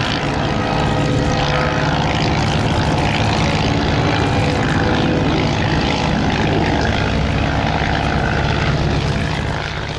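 Replica Curtiss Pusher biplane flying by, its piston engine and propeller giving a steady drone that eases off a little near the end.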